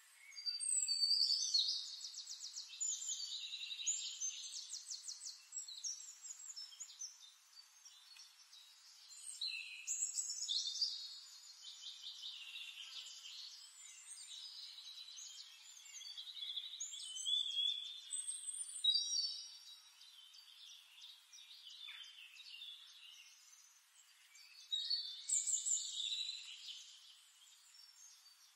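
Songbirds singing: trilled and chirping phrases that swell into louder bursts every several seconds.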